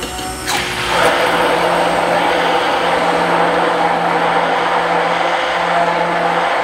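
Immersion blender whisking raw eggs in its tall plastic beaker: the motor spins up about half a second in, then runs at a steady speed.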